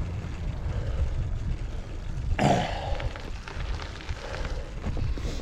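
Wind buffeting the camera microphone on a moving bicycle, a steady low rumble. A little under halfway through comes one short vocal sound from the rider, a grunt or hard breath.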